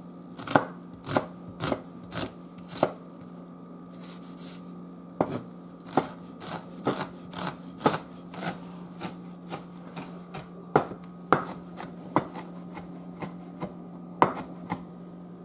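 Kitchen knife chopping vegetables on a cutting board: quick irregular strikes in runs, with a couple of short pauses.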